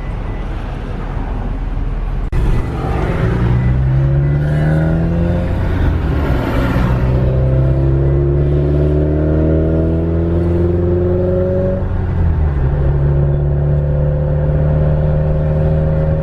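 Car engine pulling away and accelerating through the gears. Its pitch climbs in long sweeps and drops at the shifts, one of them about twelve seconds in.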